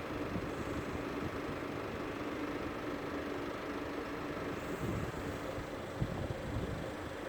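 Steady mechanical hum: a constant low tone over a rumble, with a brief knock about six seconds in.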